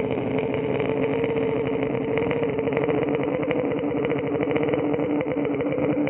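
A person drawing a long, slow breath in through the throat while making a sound, a breathing exercise against snoring. It is one unbroken, rattly, buzzing tone that drops lower about five seconds in.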